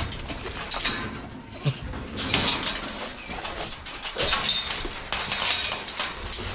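Clanks and rattles of a metal kennel cage being handled while hunting dogs are let out, with a couple of brief low dog vocalizations.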